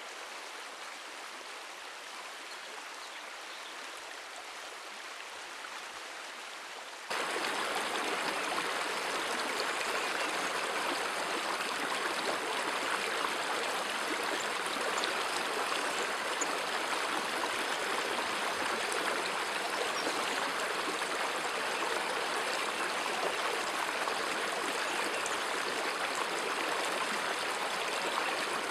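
Shallow river rushing over rocks and small rapids, a steady rush of water. It is softer at first and comes in suddenly louder about seven seconds in.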